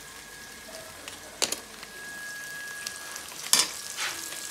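Onion and tomato masala sizzling in oil in a pan, with two sharp clicks, the second and louder about three and a half seconds in.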